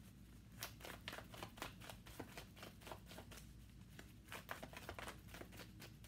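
A deck of tarot cards shuffled overhand: faint, irregular clicks and flicks of cards slipping against each other, a few each second.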